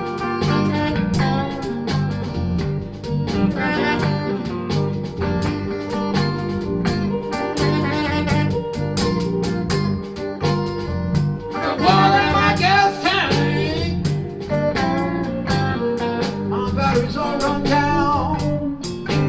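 Blues band playing: electric guitar, bass and drums over a steady beat. About twelve seconds in, a louder lead line with bends and vibrato comes to the front.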